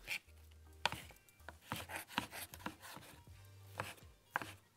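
Chef's knife chopping stacked slices of smoked turkey on a wooden cutting board: a series of irregularly spaced knocks as the blade strikes the board.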